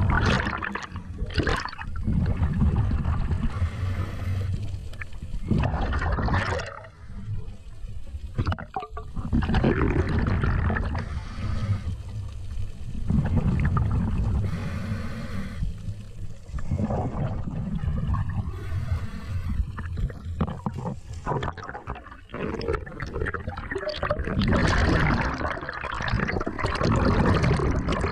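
Water rushing and sloshing over an underwater camera housing as a diver swims, rising and falling in uneven surges every few seconds, muffled and heavy in the low end.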